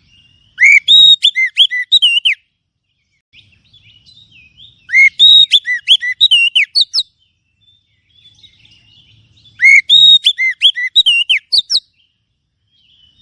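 Oriental magpie-robin (kacer) song from a lure recording meant to draw in wild magpie-robins: three loud phrases of rapid arched whistled notes, about four seconds apart, with faint twittering between them.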